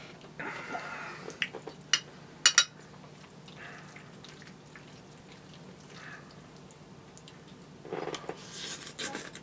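Eating spaghetti with a fork: a few sharp metallic clinks of the fork against the dish, the loudest sounds here, then wet slurping and mouth sounds as a large forkful of noodles goes into the mouth near the end.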